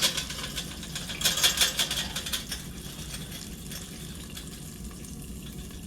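Chicken nuggets frying in hot oil: a burst of crackling and popping about a second in, then a fainter steady sizzle.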